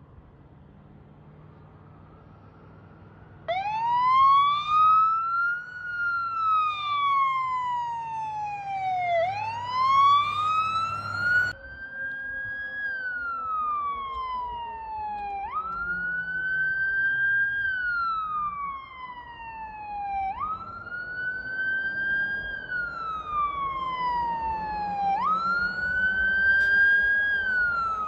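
Fire truck siren wailing, starting about three seconds in with long rising-and-falling sweeps. From about twelve seconds in the pattern changes to a quick rise and a slow fall, repeating about every five seconds. A low engine drone runs under the first part.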